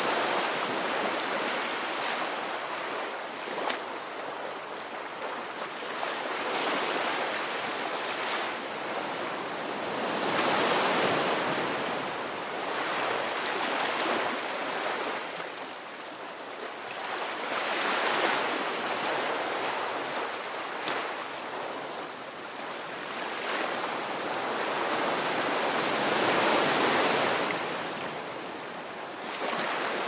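Ocean surf breaking and washing ashore: a steady rush of water that swells and fades every few seconds.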